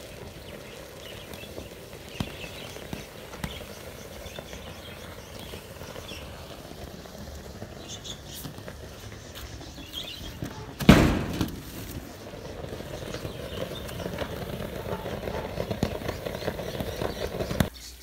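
Fire burning in a backyard metal-melting furnace with a steady rushing noise, the flare-up of an aluminium radiator melt that the owner reckons held magnesium. About eleven seconds in comes a single loud thump. After it the rushing grows steadily louder and then cuts off abruptly just before the end.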